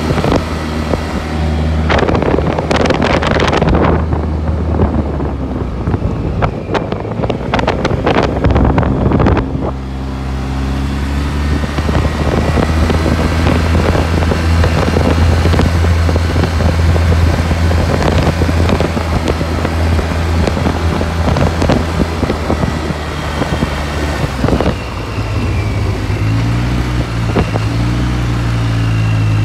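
Off-road vehicle engine running steadily while being ridden, with heavy gusts of wind noise on the microphone for the first ten seconds or so. Near the end the engine speeds up, its pitch rising and wavering.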